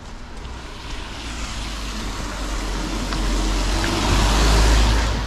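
A dark Audi SUV approaching on a wet road, its tyres hissing on the wet tarmac over a low engine rumble, growing steadily louder to a peak near the end.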